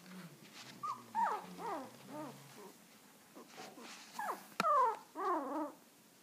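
Very young puppy whimpering: a string of short, high cries that each fall in pitch, the loudest just after a sharp click about halfway through.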